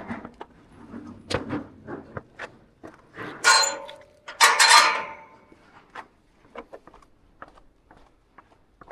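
A door being pushed open with two loud scraping creaks about three and four and a half seconds in, then light footsteps.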